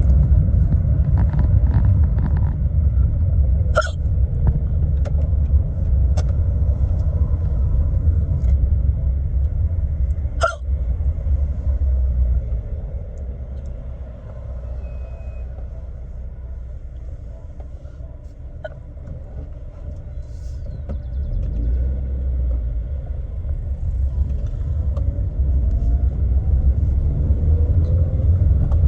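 A woman hiccuping sharply, twice, about four and ten seconds in, over the steady low rumble of car road noise inside the cabin. The rumble eases for several seconds in the middle.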